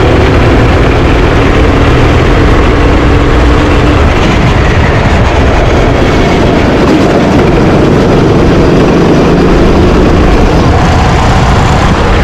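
Rental racing kart's engine running loud and steady on track, its pitch dipping and rising a little as the throttle changes, over a heavy low rumble.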